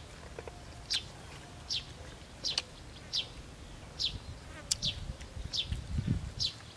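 A bird calling over and over: short, high, downward-slurred notes, roughly one every three-quarters of a second.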